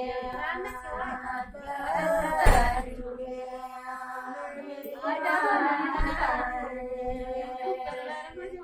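Women's voices singing, with a steady held tone underneath, and two dull thumps about two and a half and six seconds in.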